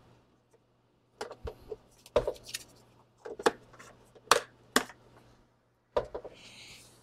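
Sharp plastic clicks and knocks as the roller brush guard of a Coredy L900 robot vacuum is pressed and snapped into place, several of them about a second apart, then a short scraping rustle near the end.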